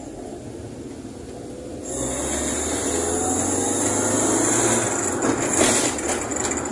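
Fiat 147 race car's engine heard from inside the cabin, running low and steady at first, then pulling away about two seconds in, with the revs rising and the sound getting louder.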